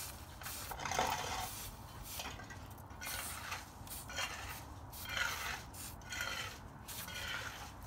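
Repeated hand scraping or rubbing strokes, uneven, about one or two a second.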